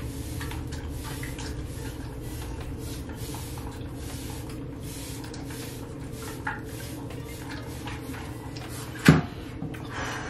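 Spray bottle spritzing hair again and again in short hissing bursts, over a steady low hum. A single loud thump about nine seconds in.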